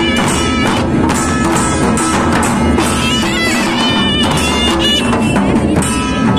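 Himachali deity-procession band playing: dhol drums beaten in a steady rhythm with a wavering wind-instrument tune over them, all loud and continuous.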